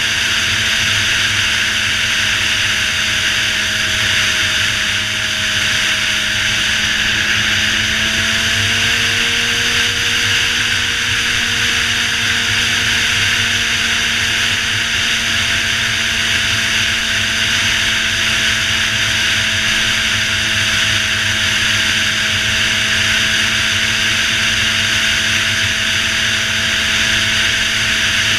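Suzuki GSX-R600's inline-four engine running at a steady highway cruise, its pitch rising slightly about eight to ten seconds in and then holding, under a heavy, constant rush of wind noise.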